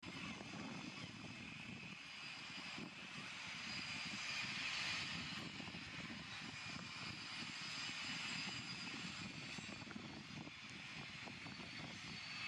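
Harbour tugs' diesel engines running steadily while towing, heard as a low rumble with a hiss above it that swells a little about four seconds in.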